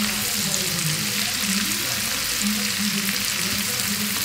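Spinach stems frying in bubbling butter with onion and pepper in a nonstick pan: a steady sizzle, with a spatula stirring through them.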